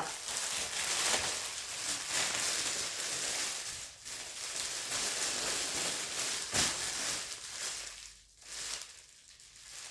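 Rustling handling noise as a fabric bath mat is moved and turned over, with one sharp click about six and a half seconds in. It goes quieter near the end.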